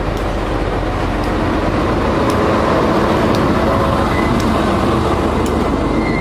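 Diesel locomotives of a container freight train running slowly past at close range, with a steady engine rumble.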